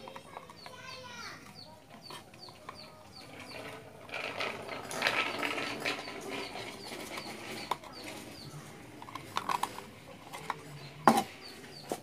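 Chickens clucking in the background while hands work on a jet pump's pressure switch and its wiring, with faint handling noise and a few sharp clicks, the loudest near the end.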